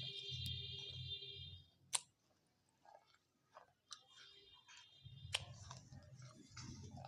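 Close-miked eating of dahi papdi chaat: chewing and mouth sounds with a few sharp clicks, two of them standing out, about two seconds in and again past five seconds.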